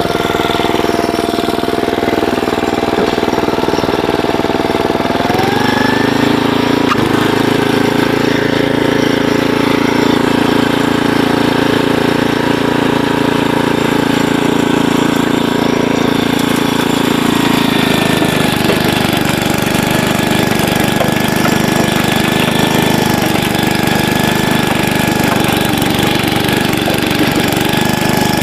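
Troy-Bilt Horse rear-tine rototiller's gas engine running under load while tilling garden soil, its note rising about five seconds in and changing again near eighteen seconds.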